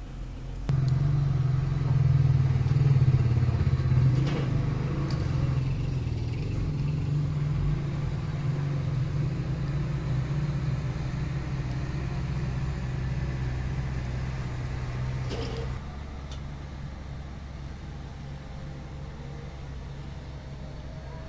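A motor running with a steady low hum. It starts abruptly about a second in, is loudest for the next few seconds, and drops to a quieter level near the end.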